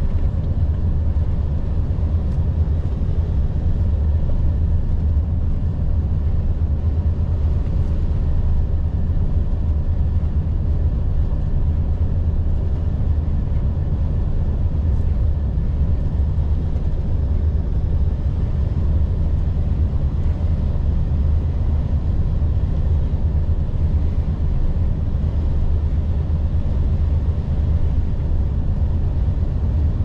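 Volvo FH 460 truck's 13-litre six-cylinder diesel running steadily while driving: a constant deep, low drone with no changes.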